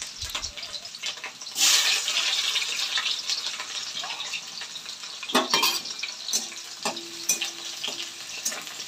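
Sliced onions and green chillies frying in hot oil in a metal kadhai: a steady sizzle that flares up loudly about a second and a half in as more onion goes into the oil. In the second half a metal spatula stirs, scraping and clicking against the pan.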